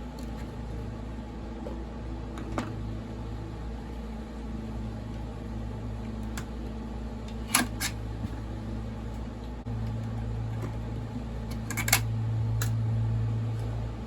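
Steady low drone of a neighbour's lawn mower running, growing louder about two-thirds of the way through. Over it come a few sharp clicks and clinks of hand tools and small parts as a chainsaw's carburetor and top cover are taken off.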